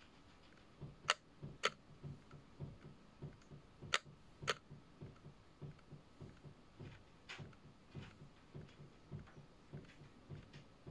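Soft, regular tapping, about three taps a second, with a few sharper clicks mixed in, two close pairs in the first half and one more later.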